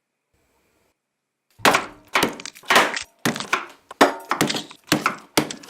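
Something being smashed with repeated hard blows, each with a crash of breaking material. The blows begin about a second and a half in and come about two a second.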